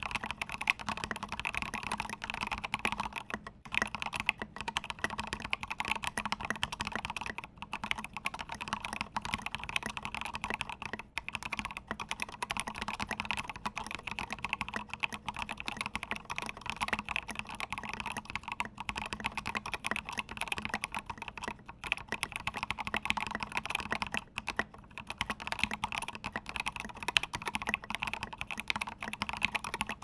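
Fast, continuous touch-typing on a custom PLA75 mechanical keyboard: lubed Tealio linear switches on a gasket-mounted FR4 plate in a PLA case, under SA-profile keycaps. It makes a dense stream of thonky and subdued keystrokes with spacebar presses mixed in and a few very short pauses.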